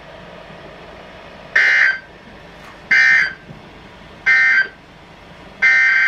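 Emergency Alert System SAME digital data bursts: three short, harsh, buzzy bursts about a second and a half apart, the pattern of the end-of-message signal. A longer burst of the same data sound begins near the end as the next alert's header starts.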